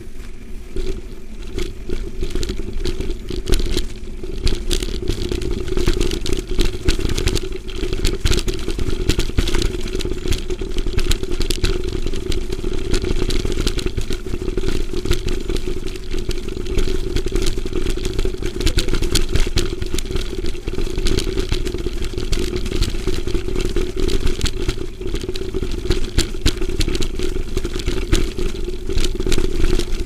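Mountain bike ridden over a bumpy dirt and stone track, the bike and camera rattling and clattering with every bump, over wind noise and a steady hum.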